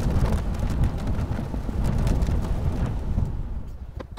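Road and engine rumble inside the cabin of a moving 2017 Honda Civic, a steady low noise with scattered light ticks.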